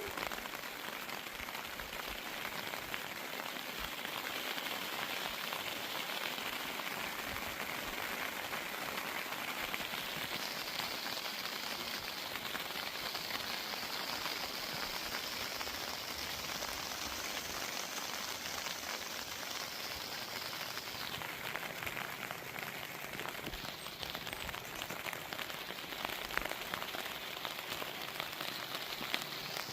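Steady rain falling, with many individual drops pattering. A higher hiss rises over it about a third of the way in and drops away about two-thirds of the way through.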